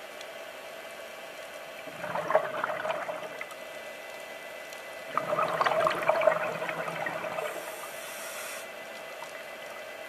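Scuba diver's exhaled bubbles from the regulator, two bubbling bursts starting about two seconds and five seconds in, over a steady hum.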